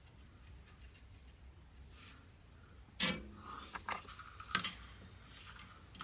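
Small hand tools and parts being handled on a workbench, quiet at first. About halfway through comes one sharp click, then a few lighter clicks and scrapes.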